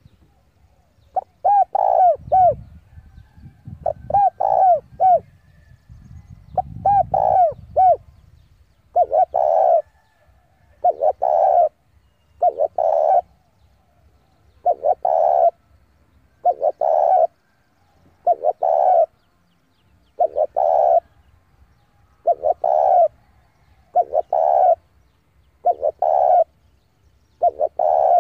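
Spotted dove cooing over and over: a decoy male's song, used to lure rival males. For the first few seconds the phrases come as runs of separate notes over a low rumble. After that one short phrase comes about every two seconds.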